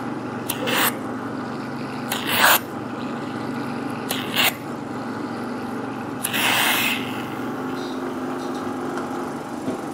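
Hydrafacial machine's suction pump running with a steady hum while a diamond dermabrasion handpiece works over facial skin. Four short bursts of sucking hiss come from the tip drawing in air and water.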